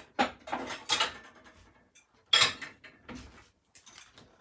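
Kitchen dishes and utensils clattering as they are handled: a run of knocks and clinks in the first second, one louder clank about two and a half seconds in, then a few lighter knocks.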